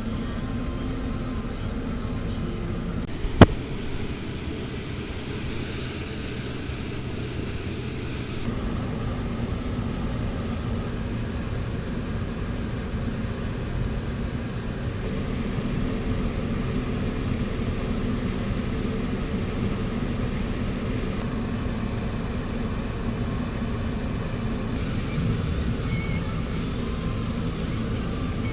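Car driving on the road, a steady low rumble of road and engine noise, with one sharp click about three seconds in.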